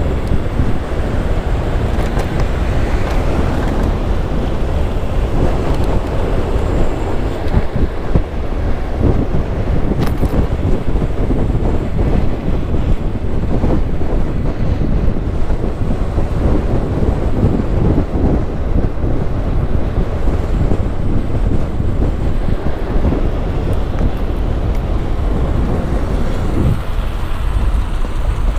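Wind rushing over the microphone of an e-bike rider moving off-road. Under it is a steady low rumble and frequent small knocks and rattles from the bike rolling over rough trail.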